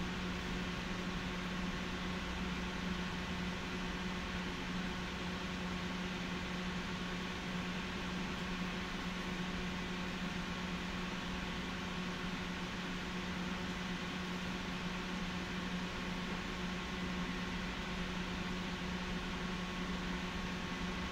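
Konstal 105Na tram standing still with its electrical equipment running: a steady low hum with a fainter higher whine over a constant hiss.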